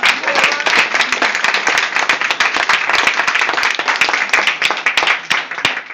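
A small group of people applauding, with fast, dense hand clapping. The clapping stops shortly before the end.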